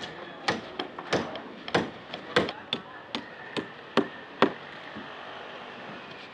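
Hammer blows on wooden formwork: a quick, uneven series of sharp knocks about twice a second, which stop about four and a half seconds in.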